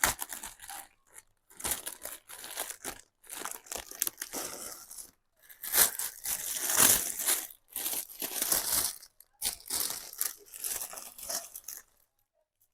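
Packaging crinkling, rustling and tearing in irregular bursts as a parcel of clothing is unwrapped; it stops about a second before the end.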